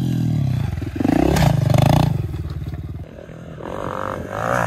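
110cc dirt bike engine revving. It climbs about a second in, eases off, then revs up again near the end.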